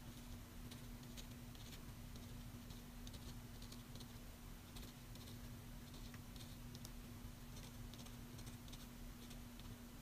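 Felt-tip marker tip tapping dots onto paper: faint, irregular light ticks, several a second.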